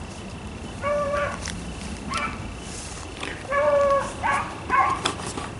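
Beagles baying on the trail of game: one bay about a second in, then three in quick succession from about three and a half seconds in.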